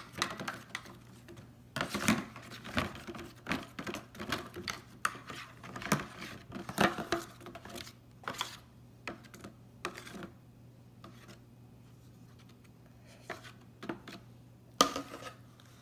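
A stirring utensil tapping, clicking and scraping against a mixing bowl as the glue, shaving cream and blue food coloring slime mixture is stirred. The strokes come irregularly for about ten seconds, then stop, with one more knock near the end.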